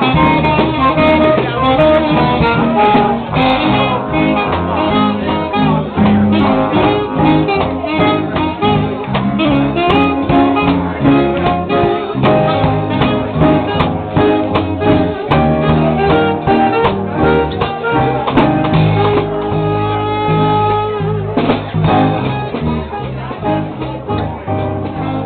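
A live band playing.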